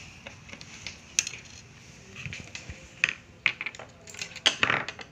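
Sharp clicks and knocks of a laptop's casing and screen assembly being handled during disassembly, a few single taps spread out, then a longer clatter near the end.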